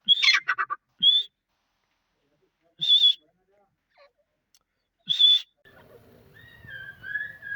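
Francolins (teetar) calling: a fast run of harsh notes falling in pitch, then three short high calls about two seconds apart. Near the end a fainter wavering whistled tone comes in over a low background noise.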